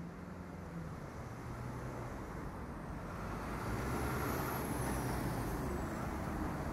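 Road traffic: cars and vans passing, a steady rumble of engines and tyres that grows gradually louder.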